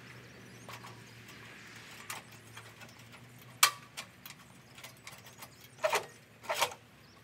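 A few sharp, irregularly spaced knocks: a small one about two seconds in, the loudest about three and a half seconds in, and two close together near the end.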